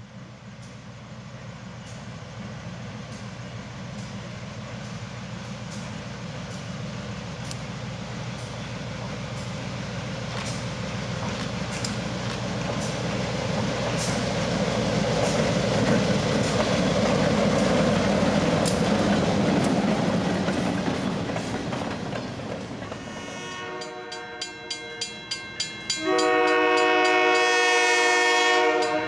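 EMD SW1500 diesel switcher hauling freight cars approaches and passes. Its engine rises to its loudest about two thirds of the way through and then fades, with wheels clicking over the rail joints. Near the end a grade-crossing bell rings in quick, even strokes, and the locomotive's air horn sounds one long, steady blast.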